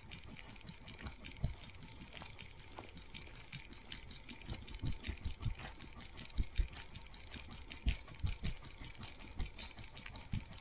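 A dog's paws walking on a gravel track: crunching, pattering steps with irregular low thumps, busier and louder from about four seconds in.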